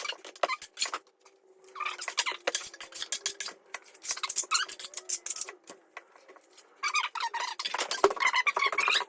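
A metal plastering tool scraping and clinking against bonding plaster. It comes in three runs of quick scrapes and taps with short pauses between them.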